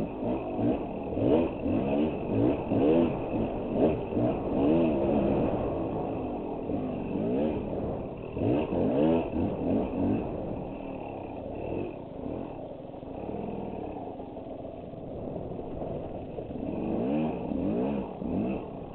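Dirt bike engine revving up and down over and over, its pitch rising and falling with each blip of the throttle. The blips come thick and fast at first, the engine runs lower and steadier through the middle, and it revs up again near the end.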